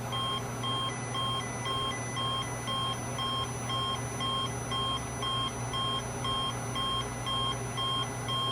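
Weather alert radio's alarm beeping at one steady pitch, about twice a second, set off by the weekly NOAA tone-alert test, over a steady low hum.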